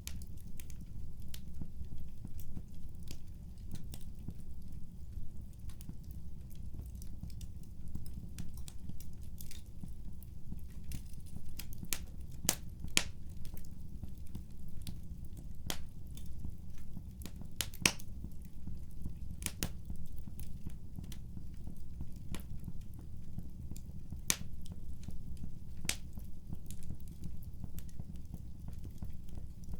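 Wood fire crackling in a fireplace: irregular sharp pops and snaps over a steady low rumble, with a few louder pops around the middle.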